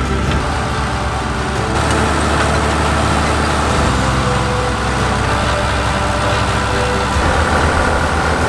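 Schlüter Compact 950 V6 tractor's diesel engine running steadily under load while pulling a tine harrow. The engine note lifts slightly a couple of seconds in.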